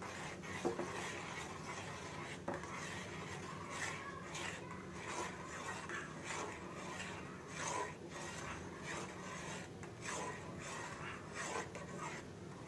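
Metal spoon stirring boiling instant noodles in a steel pan, scraping the pan in repeated short strokes, roughly one or two a second.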